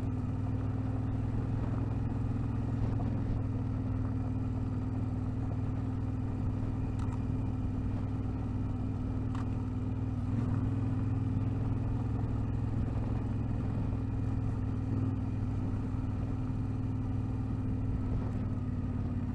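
Vehicle engine running at a steady speed while driving over a loose gravel track, with a few faint clicks from stones.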